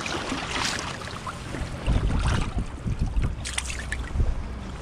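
Wind rumbling on the microphone over lapping river water, with gusts heaviest in the second half, and brief splashing as a brown trout is let back into the water.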